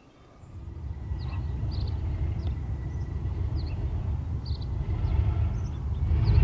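Class 37 diesel locomotive's English Electric V12 engine running as it approaches, a low rumble that starts about half a second in and grows louder. Birds chirp briefly over it.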